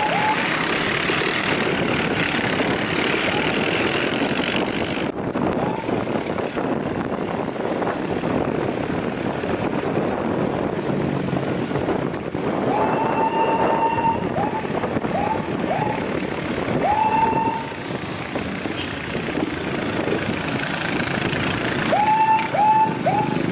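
Motorcycles riding in convoy, with a steady rush of engine and wind noise. Over it, a police siren gives short blips that sweep up and hold: a longer one about halfway through, a quick run of four after it, and three more near the end.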